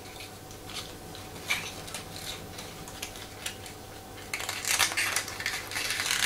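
A small white cardboard toy box being opened and handled by hand: scattered rustles and light clicks of card and paper, getting busier about four seconds in.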